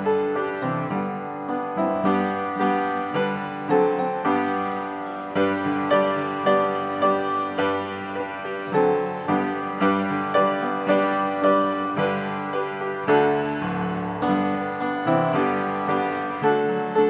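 Piano playing a postlude at the close of a church service: a flowing run of chords and notes at an even, moderate pace.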